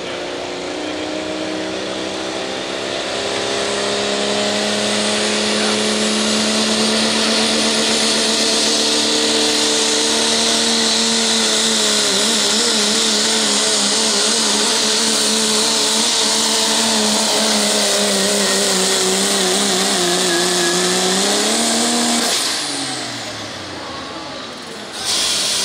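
Pro Stock diesel pulling truck, a Cummins-powered Dodge Ram, running flat out as it drags the weight sled, with a high turbo whistle over the engine. The engine note wavers in the middle of the pull and climbs, then falls away a little before the end as the driver lets off. A sudden loud hiss starts near the end.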